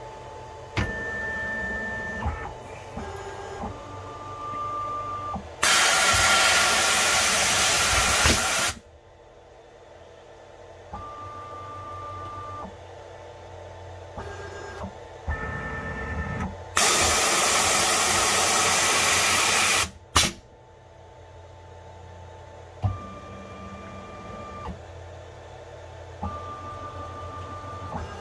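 A CNC mill's automatic tool change. Short steady stepper-motor whines come as the axes move, and two loud blasts of compressed air of about three seconds each, around six and seventeen seconds in, as the pneumatic drawbar lets go and the air blast clears chips off the tool. A sharp clack follows just after the second blast.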